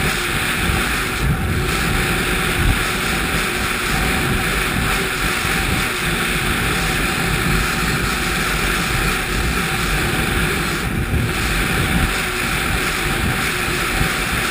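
Ski-Doo 1200 4-TEC snowmobile's four-stroke three-cylinder engine running steadily at speed, mixed with wind rushing over a helmet-mounted microphone.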